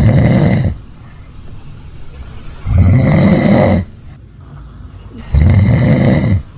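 A person snoring loudly: three long snores, each about a second, coming just under three seconds apart.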